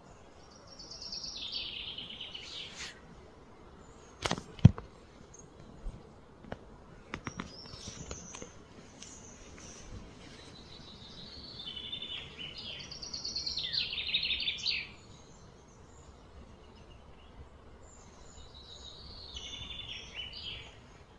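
A bird singing outdoors in three bouts of high, falling chirps. Between about four and eight seconds in there are several sharp clicks or knocks, the loudest one just before the five-second mark.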